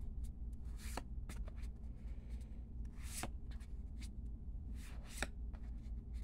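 Magic: The Gathering cards being flipped through by hand, one card slid from the front of the pack to the back at a time. There are three sharp swishes of card against card about two seconds apart, with small ticks of handling between them, over a steady low hum.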